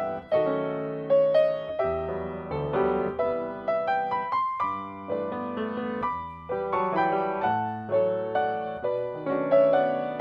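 Grand piano played four hands by two pianists: a steady stream of melody and chords, with a short rising run of higher notes about four seconds in.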